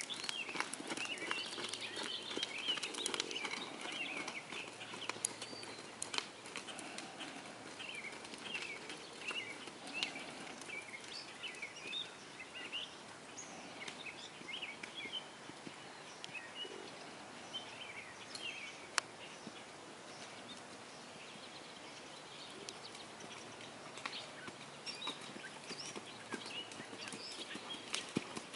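Birds chirping and singing in the background, with the hoofbeats of a ridden Quarter Horse on sand arena footing as scattered sharp clicks, densest in the first few seconds.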